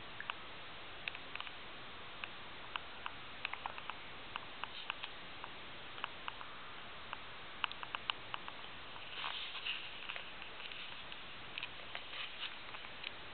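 Guinea pig chewing and crunching dry food from its bowl: irregular, crisp little clicks, with a brief noisier stretch about nine seconds in.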